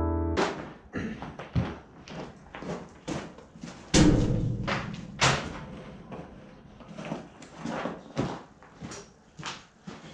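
A person moving about in a cluttered wooden shed: footsteps and knocks, with a heavy slam about four seconds in and another sharp knock just after.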